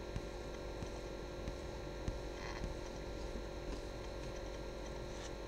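Steady electrical hum of the recording setup, a few fixed tones over low hiss, with a few faint ticks.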